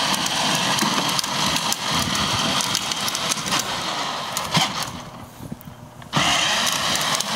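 A battery-powered ride-on toy motorcycle runs on asphalt, its motor and hard plastic wheels making a steady rolling noise. The noise drops away about five seconds in and starts again suddenly about a second later.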